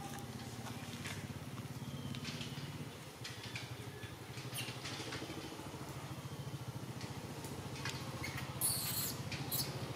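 Scattered short, high clicks and squeaks over a steady low hum, with a louder rustling burst about nine seconds in.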